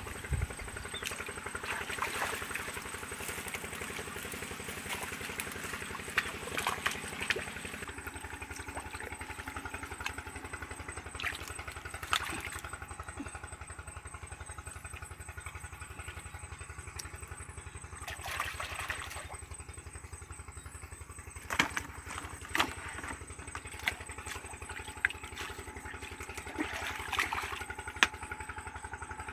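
A small engine running steadily at an even speed, with scattered clicks and knocks over it.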